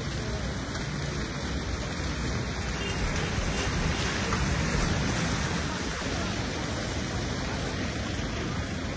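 Steady rushing of muddy floodwater running fast across a road.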